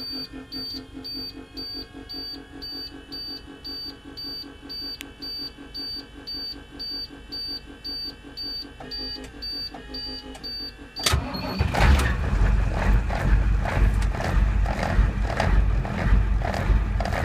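A dashboard warning chime pulses about twice a second while the glow plugs heat on a 1991 Navistar bus's diesel engine; about eleven seconds in, the diesel cranks and catches, then runs loud and rough at a cold idle.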